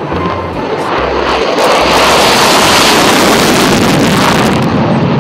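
F-16 fighter jet taking off on afterburner: a loud rushing jet-engine noise that builds over the first two seconds and then holds steady.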